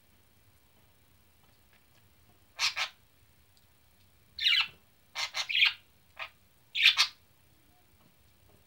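A bird chirping in short calls, some single and some in quick twos and threes, with quiet gaps between them.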